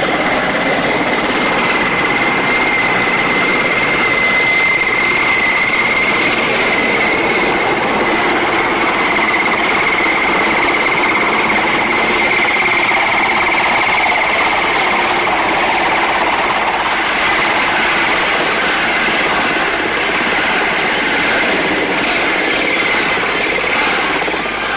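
Loud, steady engine noise with a constant high-pitched whine held throughout.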